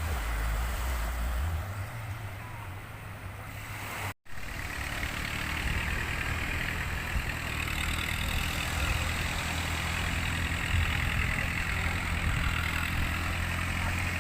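An engine running steadily with a low hum, cut by a brief gap of silence about four seconds in.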